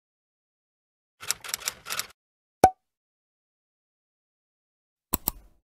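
Short click sound effects from an end-screen animation over silence: a quick flurry of clicks about a second in, then one sharp click with a brief ping, and two quick clicks near the end, like mouse clicks on an animated like button.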